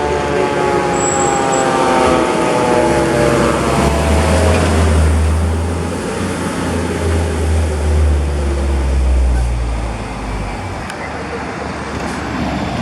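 Heavy fire apparatus driving past with its large diesel engine running. Its engine note falls slowly in pitch over the first few seconds, then gives way to a deep rumble that is loudest from about four to ten seconds in and eases off near the end.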